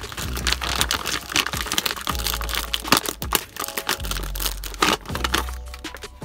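Kraft paper bag with a plastic window crinkling and rustling in a dense run of crackles as it is handled and opened to take out a potted Venus flytrap, over background music.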